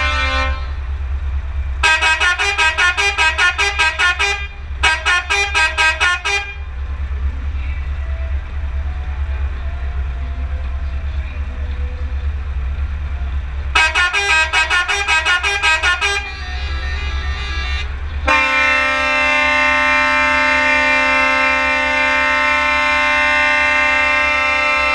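Multi-tone truck air horns sounding in quick stuttering blasts, about six a second, in three bursts, then held as one long multi-note chord through the last third. Under them runs the low drone of an idling truck diesel.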